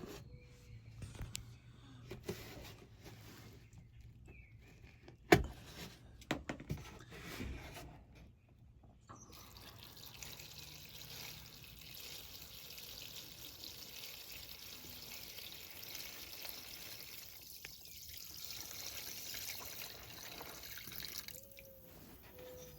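A few knocks and clatters of handling, one sharp knock about five seconds in, then 30% vinegar poured steadily into a container for about twelve seconds, stopping shortly before the end.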